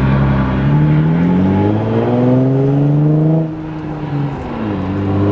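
Infiniti G35 coupe's 3.5 L V6 accelerating with its muffler and resonator deleted, heard from inside the cabin. The loud exhaust note climbs steadily in pitch, falls away suddenly about three and a half seconds in, then climbs again near the end.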